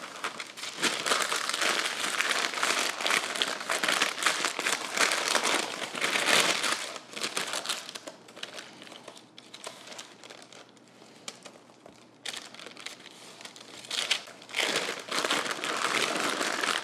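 Parchment paper crinkling as it is handled and rolled around a log of shortbread dough. The crinkling is dense for the first several seconds, softer and sparser through the middle, then dense again near the end.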